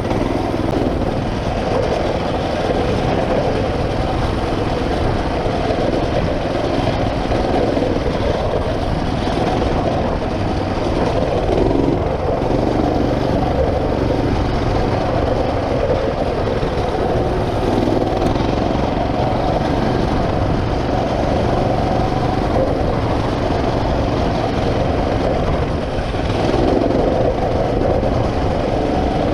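Mini bike's small single-cylinder four-stroke engine running steadily while riding, with small rises and falls in pitch.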